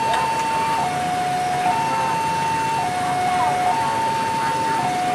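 Railway level-crossing warning alarm sounding two alternating electronic tones, high then low, each held about a second, over steady background noise.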